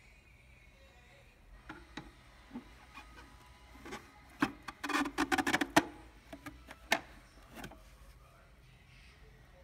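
Hard plastic parts clicking and rattling as a water filter is handled and pressed into the clear plastic filter bowl of a steam vacuum cleaner. There are a few scattered clicks, then a quick dense run of clicks and rattles midway, and a couple more single clicks after.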